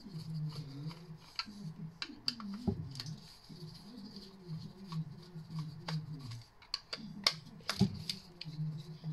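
A screwdriver backing the Phillips screws out of a plastic electrical wall socket, with scattered small clicks and scrapes of the metal tip and screws against the plastic and metal frame.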